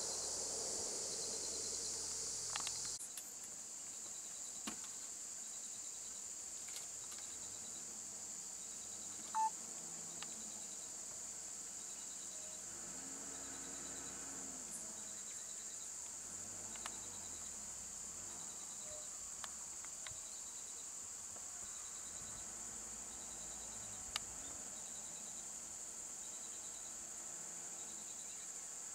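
Steady high-pitched chorus of insects, with faint regular chirping beneath it. A louder rushing noise drops away about three seconds in, and a single short high chirp stands out about nine seconds in.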